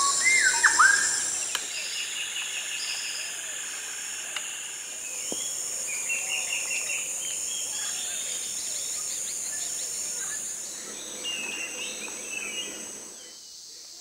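Tropical rainforest ambience: several birds calling, with a few loud swooping calls at the start and repeated chirping phrases, over a steady high-pitched insect drone. The chorus fades away about a second before the end.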